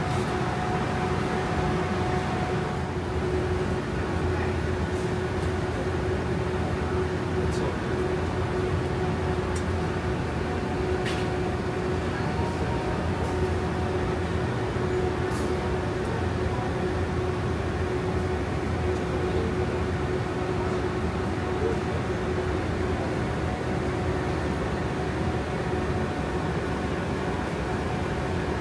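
Steady background hum of a supermarket shop floor, with a constant droning tone running through it and a few faint clicks.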